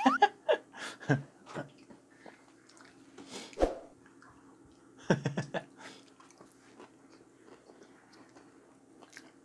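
A person chewing and biting, with wet mouth sounds and scattered small clicks, while eating fried chicken and rice.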